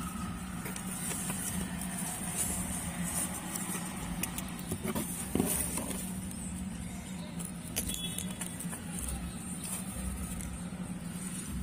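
Dry grass and newspaper bedding in a cardboard box rustling as a hand moves through it among hamsters, with a knock about five and a half seconds in, over a steady background hum.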